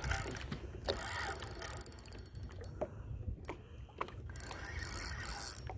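Spinning reel being cranked to wind in line, its gears giving a fast run of ticks, over a low rumble.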